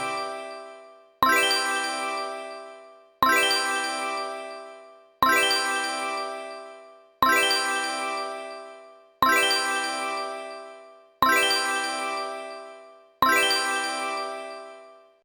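A bright bell-like ding sound effect struck seven times, about every two seconds, each ringing out and fading away before the next.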